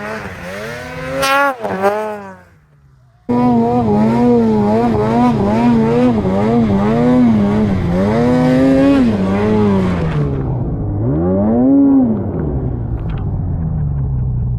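Snowmobile engine being ridden, its revs rising and falling again and again as the throttle is worked on and off. The sound drops out briefly about three seconds in and resumes abruptly. Near the end it settles to a steady, lower running note.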